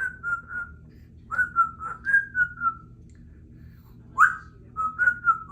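Congo African grey parrot whistling in short runs of clear, gently falling notes, with a quick upward-sliding note about four seconds in.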